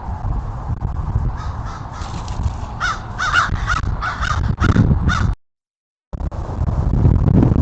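A bird giving a run of short, repeated calls, about three a second, over a low wind rumble on the microphone. The sound cuts out for a moment after the calls.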